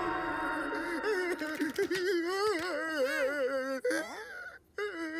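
Wordless cartoon character voice whining and moaning, its pitch wavering up and down, with brief breaks near the end.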